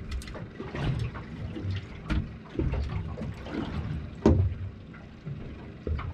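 Small boat adrift: water lapping at the hull under a few sharp knocks and taps from handling the rod and unhooking a small fish, the loudest knock about four seconds in.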